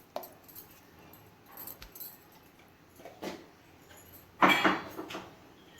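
Metal kitchen utensils clinking and scraping against a cooking pot in a few separate knocks, with a louder rattling clatter about four and a half seconds in.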